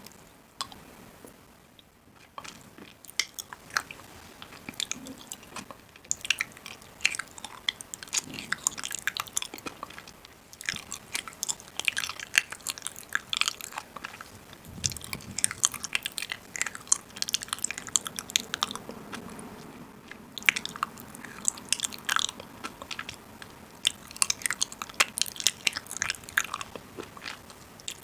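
Crunchy food being bitten and chewed close to the microphone: a dense run of irregular crisp crackles that starts about three seconds in.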